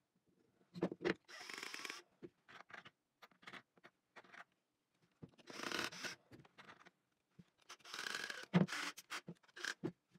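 Wooden workpieces being handled and slid on a workbench: scattered light knocks and three short scraping slides, with a sharper knock near the end.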